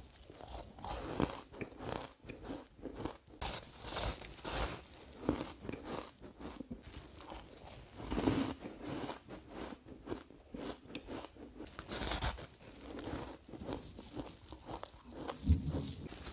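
A person biting into and chewing a crumbly, frost-like block of frozen ice, giving a steady run of crunches and crackles with several louder crunches along the way.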